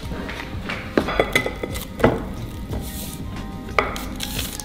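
Kitchen knife and hands working a soft beef mince patty on a ceramic plate, with a few short clinks and knocks of the blade and plate, about a second apart. Light background music runs underneath.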